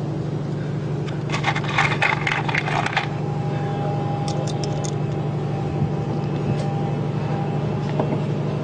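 Hand screwdriver scraping and clicking as small metal pan-head screws are driven by hand into the flange of an underwater LED light, then a few light metallic clinks of screws being handled. A steady low hum runs underneath.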